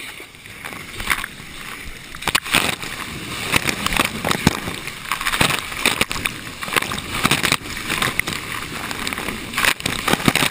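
Water of a breaking wave rushing and splashing around a surfboard riding it, heard from a camera mounted on the board, with many sharp splash hits against the housing. It grows louder about a second in.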